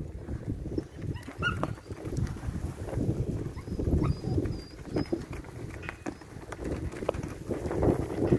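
A steer's hooves and a cattle dog's feet thudding and scuffling irregularly on dry, dusty dirt as the dog works the steer at close quarters. A few short high bird chirps come in about halfway through.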